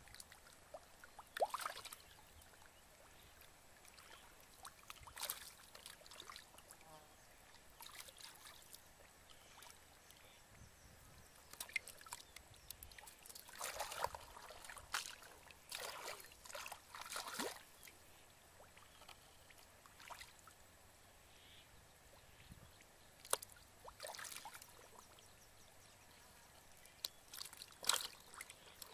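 Live fish splashing and thrashing in a plastic basin of shallow water, with hands sloshing in muddy water: short, scattered splashes with quiet gaps between, a cluster of them about halfway through.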